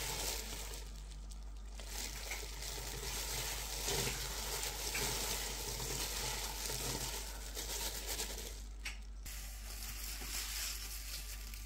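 Slit green chillies being stirred and tossed with dry ground spices and salt in a dry pan: a steady rustling, with two short pauses.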